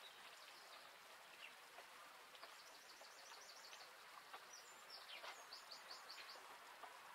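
Near silence with a faint steady hiss, and a small bird's quick runs of high chirps twice, about two and a half and five seconds in.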